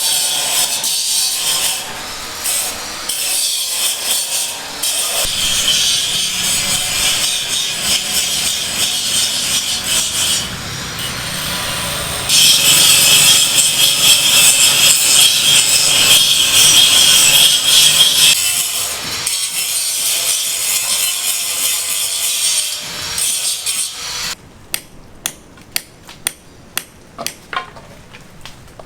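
Building-site tool work: a long stretch of loud, rasping sawing or cutting noise, then sharp taps about twice a second near the end.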